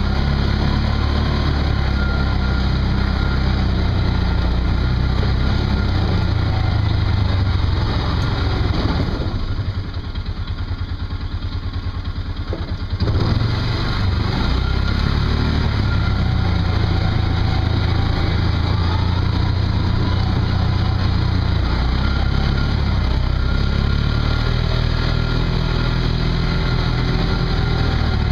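Off-road vehicle engine running steadily while driving. About 9 seconds in it eases off toward idle for a few seconds, then picks up sharply again.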